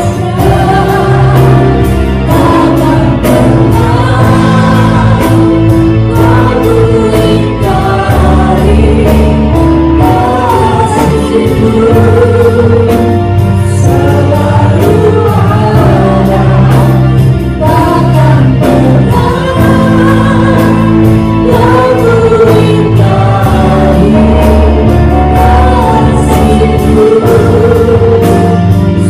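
Live church worship band: a female lead singer with backing vocals sings a slow gospel song over keyboard, bass and a drum kit keeping a steady beat.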